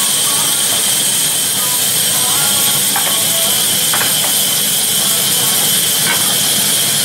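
Sawmill band saw running, a loud, steady high hiss, with a few faint knocks.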